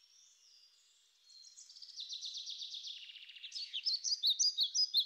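Birds chirping: a fast high twittering starts about a second in and grows louder, ending in a quick series of sharp chirps.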